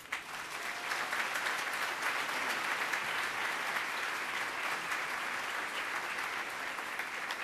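A large audience applauding: steady, dense clapping that starts at once and keeps up evenly.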